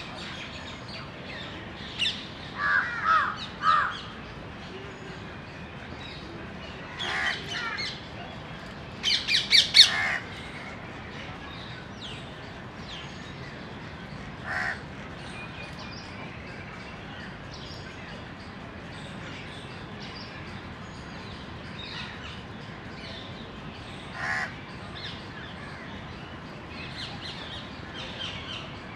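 House crows cawing: harsh calls in short bunches over the first ten seconds, the loudest burst about nine to ten seconds in, then single caws several seconds apart.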